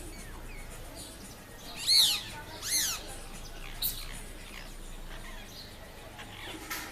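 Parrots calling: two loud calls about a second apart, each rising and then falling in pitch, with fainter chirps around them and a short click a little later.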